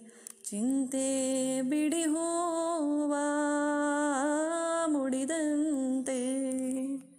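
A woman singing one long held note with a slight waver in pitch, starting about half a second in after a short breath and fading out at the very end.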